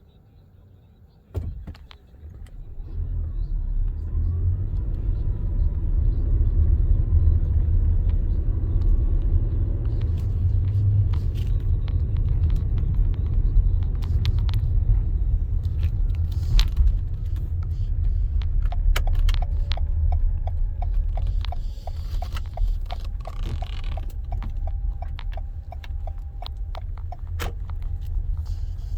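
A car pulling away and driving on a snowy road, heard from inside the cabin: a click about a second in, then a low engine and road rumble that rises in pitch as the car gathers speed. Later, several seconds of steady, regular ticking.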